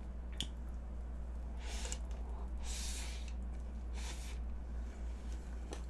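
A person breathing out through the nose three times, short hissy breaths about two, three and four seconds in, with a light click near the start and a steady low hum underneath.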